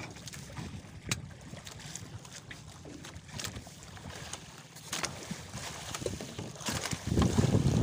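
Wind buffeting the microphone over water sloshing around a small wooden outrigger boat, with a few light knocks; the rumble swells louder near the end.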